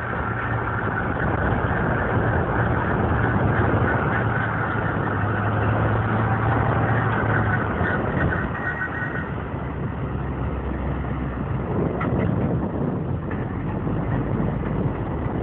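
Tractor engine running steadily under load while pulling a lime spreader, with the spreader's rear beaters throwing lime. A low drone sits under a broad rushing noise, and the engine note shifts lower about nine seconds in.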